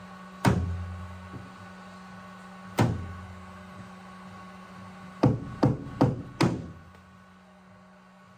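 Sharp knocks with a short ringing tail from paintless dent repair tools working a car's sheet-metal quarter panel: two single knocks, then four in a quick even run, over a steady hum that stops near the end.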